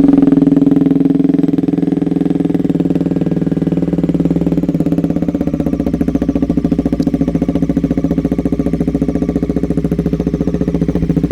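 Bajaj Pulsar NS400Z's single-cylinder engine idling steadily through a loud modified aftermarket exhaust, just after a cold-or-warm start, settling to an even idle within the first second or so.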